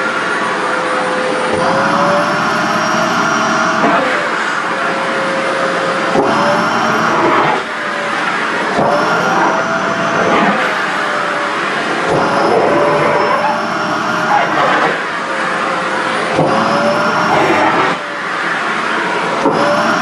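Sharp EC-KP7F-A stick vacuum cleaner running continuously while its nozzle sucks up a polyester skirt. The motor's pitch rises and falls back every few seconds as the fabric is drawn in and chokes the intake, then pulls free.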